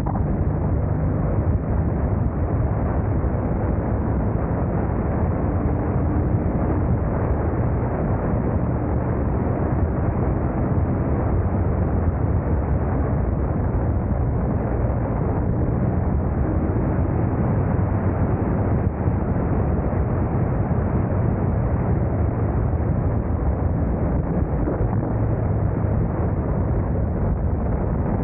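Motorcycle under way: a steady, heavy rumble of wind buffeting and road noise, with the engine's tone faintly showing through now and then.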